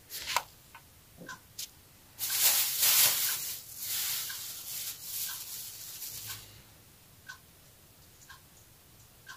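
A few light clicks, then about four seconds of crinkling rustle from a plastic spice packet being handled as seasoning is sprinkled out.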